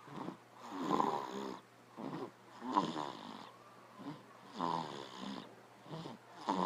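A man snoring, four snores about two seconds apart.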